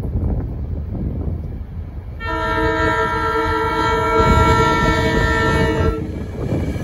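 SEPTA Silverliner IV electric multiple-unit commuter train sounding one long horn blast, a chord of several notes, from about two seconds in until near six seconds, over the low rumble of the train closing in.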